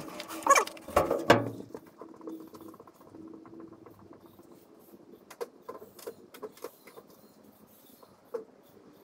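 A few sharp knocks and thumps of a hand pounding on a truck's door frame, then faint scattered ticks and taps.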